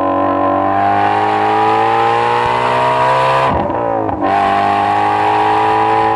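Ford Shelby GT350 Mustang's 5.2-litre flat-plane-crank V8 under acceleration, its revs climbing steadily. About three and a half seconds in there is a brief break and drop in pitch, as at an upshift, and then it pulls on at a steadier pitch.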